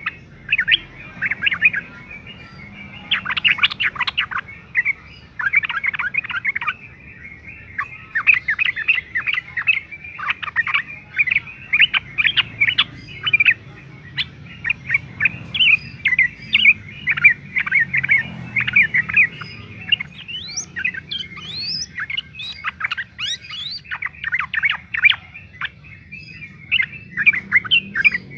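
Yellow-vented bulbul (trucukan) singing loud, fast chattering phrases one after another with short gaps between them. A faint low hum runs underneath.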